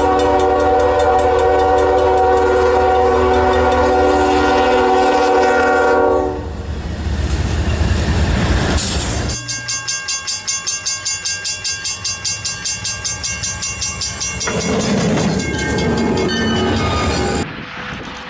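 A train horn sounds a long, loud, steady chord for about six seconds, followed by the rumble of a train running by and then a fast rhythmic clatter at about six beats a second. The sound changes abruptly near the end.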